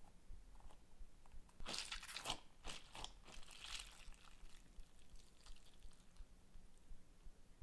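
A rubbery frog-shaped stress ball filled with water beads squeezed and worked in the hands, giving a run of short, sharp squishing noises about two to four seconds in, then a few faint ticks.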